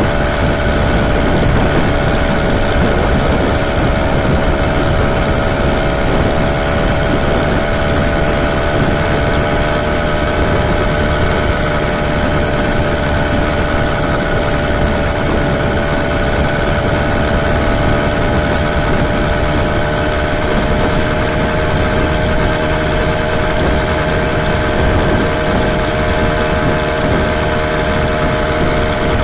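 Motorized bicycle's small engine running steadily at cruising speed, its pitch easing slightly a few seconds in and then holding, with wind rushing on the microphone.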